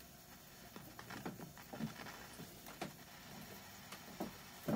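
Faint, scattered scratchy crackles and ticks as the tuning knob of a 1968 Hitachi KS-1700H transistor radio is turned across the AM band. The radio is picking up no station.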